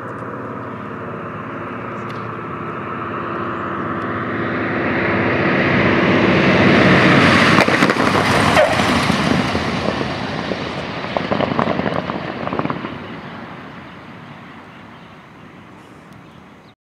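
The Super Corsair's big radial piston engine as the plane lands and rolls out, growing louder to a peak as it passes about halfway through, then fading as it rolls away. A patch of crackling comes through a few seconds after the peak.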